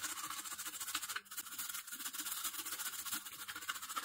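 Cotton swab scrubbing rapidly back and forth across a printed circuit board, a faint scratchy rubbing, with a short break about a second in. The swab is cleaning conformal coating off the board.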